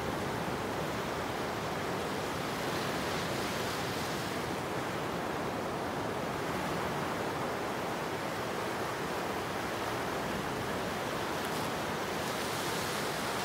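Surf: low waves breaking and washing up a sandy beach, a steady rushing hiss that swells a little about three seconds in and again near the end.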